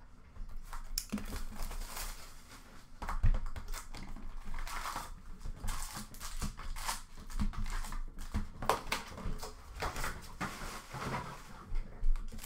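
A cardboard hobby box of Upper Deck hockey cards being torn open and its wrapped packs handled: irregular rustling, crinkling and scraping, with sharper knocks about 3 seconds in and near the end as packs are set down on the glass counter.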